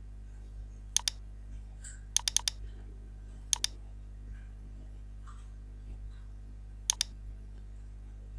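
Computer mouse buttons clicking: a double-click about a second in, a quick run of clicks a little after two seconds, another double-click at about three and a half seconds and one near seven seconds, over a steady low hum.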